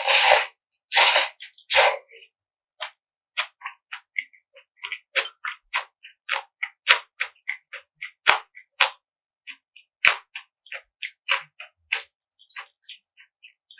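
Close-miked eating of bibim-guksu (spicy mixed noodles): three short slurps in the first two seconds, then a long run of soft, wet chewing clicks, several a second.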